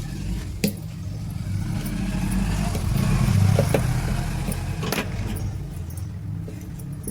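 Small electric motor humming steadily, getting louder toward the middle and then easing off, with two sharp metallic clicks, one about half a second in and one near five seconds.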